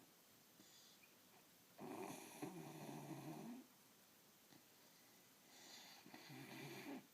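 A sleeping pet snoring: two long snores a couple of seconds apart, the second near the end.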